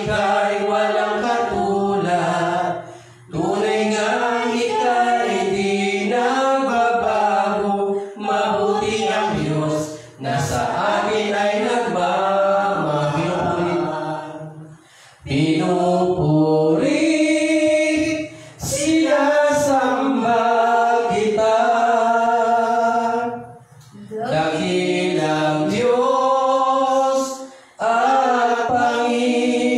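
A man singing unaccompanied into a microphone, in long phrases of a few seconds each broken by short pauses for breath.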